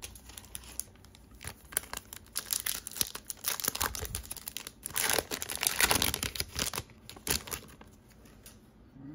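Foil wrapper of a Donruss Optic trading-card pack being torn open and crinkled in the hands: a run of crackling rustles, loudest about five to six seconds in.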